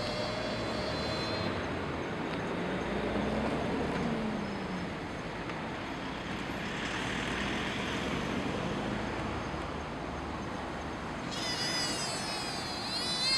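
Sika deer giving high-pitched, wavering calls, heard for about the first second and a half and again from about eleven seconds in. Between the calls there is a steady rumble of road traffic.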